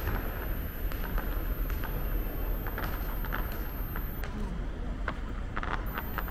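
Outdoor street ambience: a steady low rumble with scattered light clicks and taps throughout.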